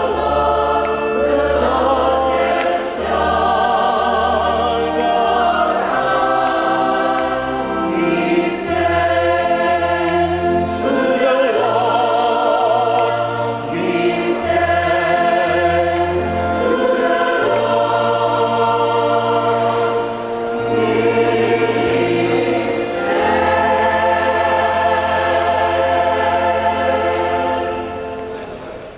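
Mixed church choir singing a hymn with organ accompaniment, long held bass notes under the voices; the music fades out near the end.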